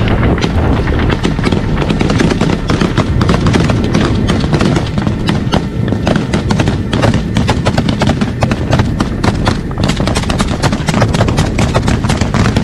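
Sustained small-arms fire: many sharp shots in quick, irregular succession from several rifles and machine guns, over a constant heavy low rumble.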